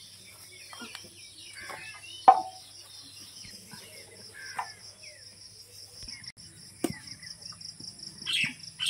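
Insects chirring steadily in a fast, even pulse, under soft scraping of cow dung being scooped off a dirt floor by hand, with a sharp knock about two seconds in and a fainter one near the end. A bird chirps several times in the last second.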